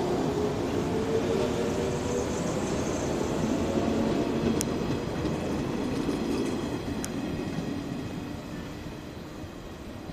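JR 115 series electric train pulling out and accelerating past, its traction motors whining with a rising pitch over the rumble of the wheels on the rails. Two sharp clicks about halfway through and again two seconds later; the sound fades over the last few seconds as the train draws away.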